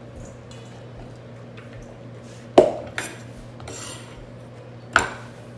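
Kitchen utensils clanking: a sharp metallic clank about two and a half seconds in, the loudest sound, another near the end, and between them a chef's knife scraping cauliflower bits across a wooden cutting board.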